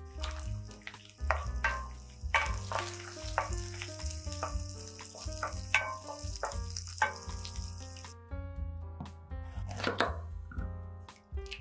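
Chopped onions sizzling in hot oil in a frying pan, stirred with a wooden spatula, over background music; the sizzle cuts off suddenly about two-thirds of the way through. Near the end a chef's knife cuts through a red bell pepper on a bamboo cutting board.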